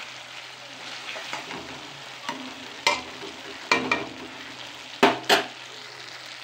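Tomatoes and green peas sizzling in mustard oil in a kadai while a steel spatula stirs and scrapes them. About three seconds in, the spatula clacks sharply against the pan four times.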